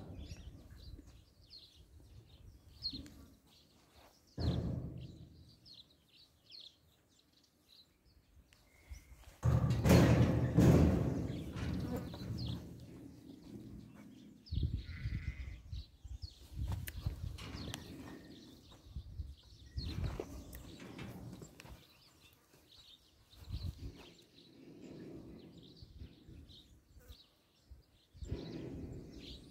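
Damara sheep in a pen, one giving a loud bleat of about two seconds around ten seconds in, with small birds chirping on and off throughout.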